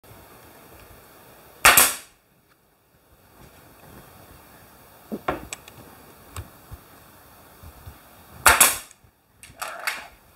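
Pneumatic nail gun firing nails through a trim piece into a plywood shelf: two loud, sharp shots about seven seconds apart, each with a short tail. Fainter clicks and knocks come between them, and a quieter clack follows the second shot.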